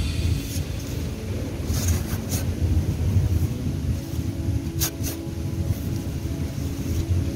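Low steady rumble of wind on the microphone while sand is scooped and shaken through a perforated stainless-steel sand scoop, with a few sharp clicks, one about two seconds in and a louder one about five seconds in.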